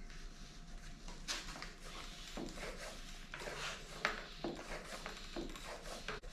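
Bicycle pump being worked in short strokes, about one a second, inflating a freshly repaired inner tube.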